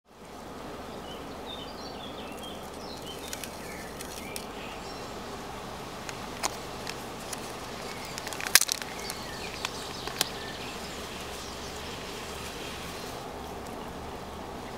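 Steady outdoor background noise with small birds chirping in the first few seconds, and scattered clicks and crinkles from a plastic fishhook packet being handled, the loudest about eight and a half seconds in.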